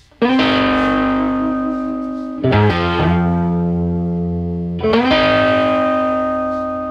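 Background music: distorted electric guitar chords, struck three times about two and a half seconds apart, each left to ring and slowly fade.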